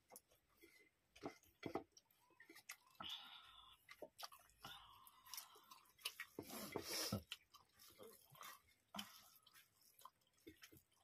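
Quiet close-up eating sounds: chewing, with small clicks and wet squelches from rice being mixed by hand on steel plates. The loudest burst comes about six to seven seconds in.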